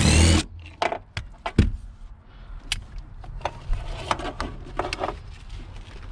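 A power tool turning a seat-belt anchor bolt runs briefly and stops about half a second in. Scattered clicks and knocks follow as the loosened metal seat-belt hardware is handled.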